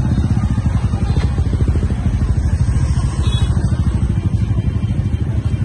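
Motor scooters crawling past at walking pace, their small engines running with a steady low, rapid putter.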